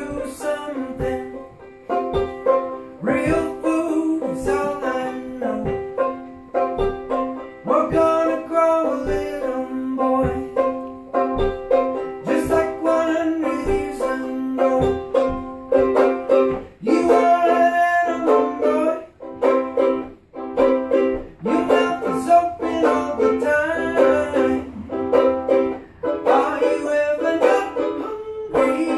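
A man singing live to his own strummed banjo ukulele, with quick plucked chords under the vocal line.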